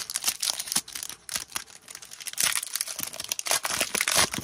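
Foil Upper Deck Allure hockey card pack wrapper crinkling and tearing as it is ripped open by hand, in irregular crackles that are loudest near the end.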